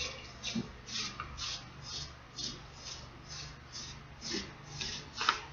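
Paintbrushes stroking and dabbing wet brown paint onto a costume wing: soft, scratchy brush strokes repeating about twice a second.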